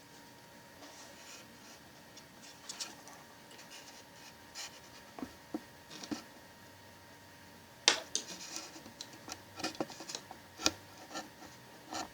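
Hands handling HK416 gas-blowback airsoft rifle parts during disassembly: scattered small clicks and light rubbing and scraping, sparse at first and busier in the second half, with a sharp click about eight seconds in as the loudest sound.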